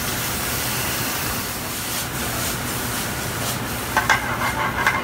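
Food sizzling in a hot stainless sauté pan on a gas burner; the sizzle starts suddenly and goes on steadily. Near the end, a spoon clinks and scrapes against the pan several times as the food is stirred.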